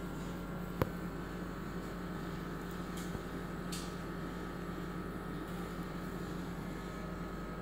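Steady hum of hospital equipment running, with one sharp click about a second in and a brief faint rustle near the middle as the plastic CPAP tubing and headgear straps are handled.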